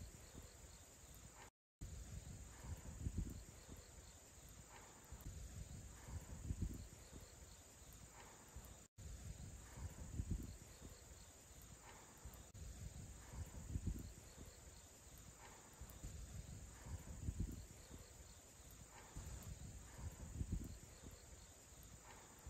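Faint, steady high chirring of crickets, with soft low thumps every second or two from footsteps on the walk. The sound drops out briefly twice.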